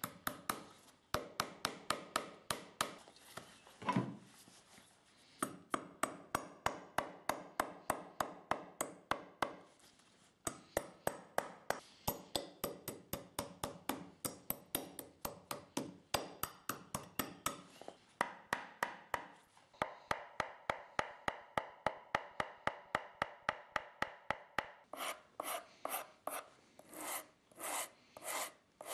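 Hand rasp scraping back and forth on the leather of a shoe pulled over a last, in quick repeated strokes about three a second, with a couple of brief pauses.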